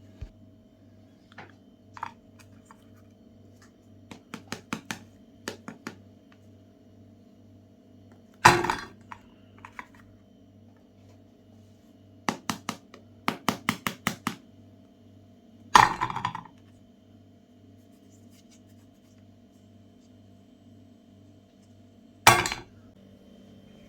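Hard clinks and knocks, like objects hitting metal or dishware, heard over a faint steady hum. There are three loud single knocks, about 8, 16 and 22 seconds in, and two runs of quick clicks, one around 4 to 6 seconds and one around 12 to 14 seconds.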